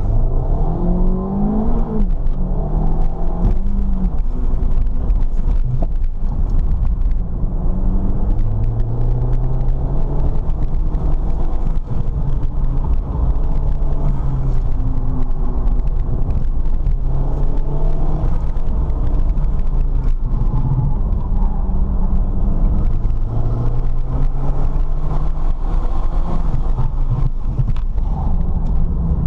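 Ford Fiesta ST's turbocharged engine being driven hard, its pitch rising under acceleration and falling off several times, over a steady low rumble of road and drivetrain noise.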